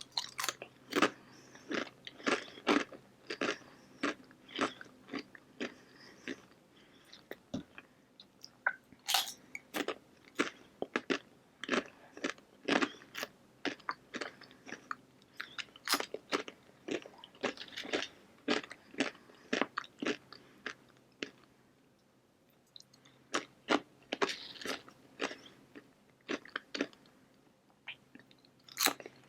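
Close-miked chewing and crunching of food: sharp, irregular mouth clicks and crunches about twice a second, with a brief lull a little past the middle.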